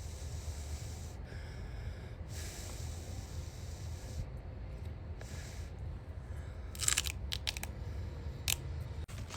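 Crunchy food being bitten and chewed, with a few sharp, crisp crunches near the end over a steady low hum.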